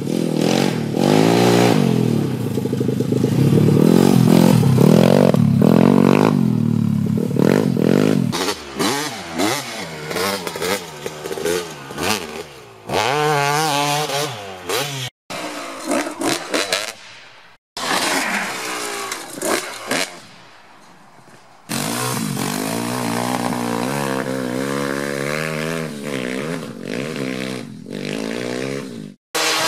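Dirt bike engines revving hard and rising and falling in pitch through the gears, in several short clips cut together, ending with a small pit bike engine. In the middle, one bike fades away into the distance.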